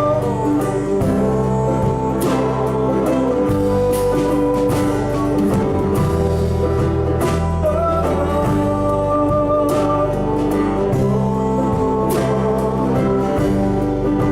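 Live band playing an instrumental passage of a song, with guitar.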